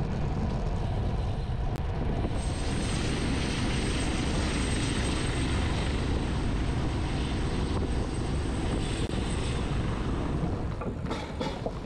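Wind buffeting the microphone of a camera on a moving road bicycle: a steady rush with a heavy low rumble, and a faint thin high whine through the middle.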